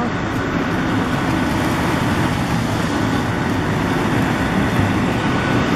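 Steady city street traffic noise, a constant low rumble of passing vehicles without distinct events.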